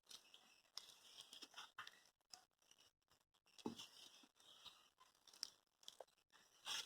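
Faint, irregular scraping and soft knocks of a spoon stirring thick chocolate cake batter in a bowl.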